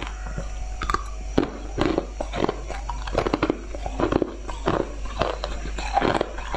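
Ice being bitten and chewed, heard close on a lapel microphone: a continuous run of irregular, crisp crunches and cracks, several a second.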